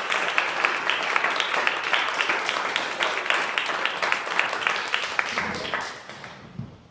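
A small audience applauding steadily, the clapping dying away about six seconds in.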